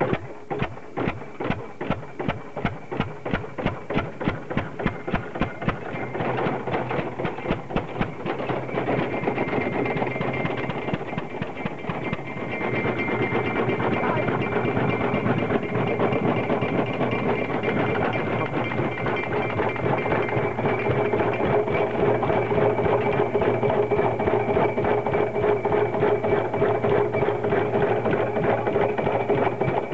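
Vintage single-cylinder stationary engines running, a regular mechanical beat of firing and valve-gear clatter at about five beats a second, turning into a denser, steadier running sound after about six seconds.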